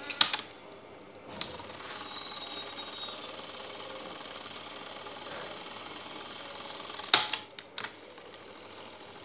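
Mechanical piano-key buttons of a Sony WM-4 Walkman cassette player being pressed: a cluster of clacks just after the start and a single click about a second later, then the tape mechanism running steadily and faintly. Another cluster of clacks comes about seven seconds in as a key is pressed again.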